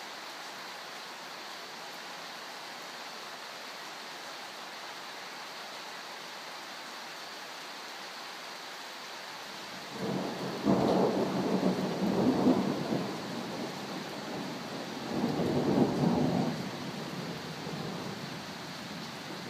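Steady heavy rain falling on trees and rooftops, with two rolls of thunder rumbling in about halfway through, the first lasting about three seconds and the second shorter, a couple of seconds later.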